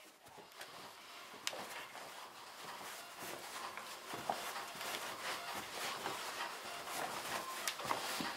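Sock feet shuffling and stepping on a carpeted floor in a shuffle dance: a steady scuffing hiss with scattered light thuds, growing louder over the first few seconds.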